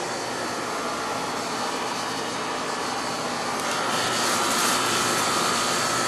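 TempStar air conditioner's outdoor unit running, its condenser fan blowing a steady rush of air with a faint steady whine underneath. It gets somewhat louder about four seconds in.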